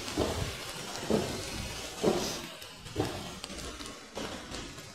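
Footsteps on wet paving stones, a soft thud about once a second, over a steady hiss of city street noise.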